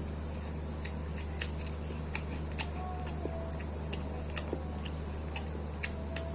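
Irregular sharp clicks and ticks of people eating, picking at and chewing fried chicken and rice, about two or three a second at uneven spacing, over a steady low hum.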